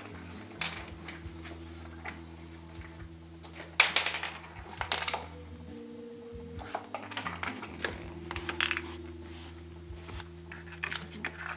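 A bottle cap clattering and skittering across the floor as a chihuahua bats and noses it, in irregular bunches of sharp clicks. The loudest cluster comes about four seconds in.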